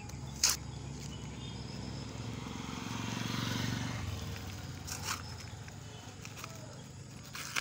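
Fingers picking and tearing open a small cardboard parcel: scrapes and rustles of card and tape, with a sharp snap about half a second in and smaller ones later. Midway a vehicle engine swells and fades as it passes.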